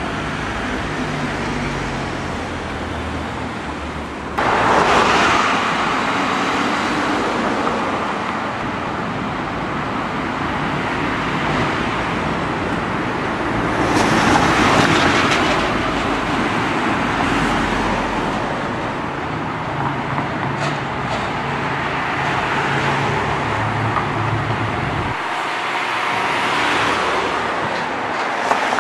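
Road traffic: cars passing by one after another, the noise swelling and fading several times, with a sudden jump in level about four seconds in.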